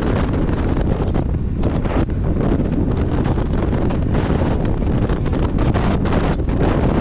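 Strong gusting wind buffeting the microphone, a loud rumbling rush that surges and eases every second or so.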